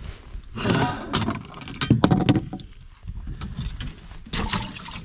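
Knocking and clattering of handling in a boat as a fish is put into the live well, in three short bursts.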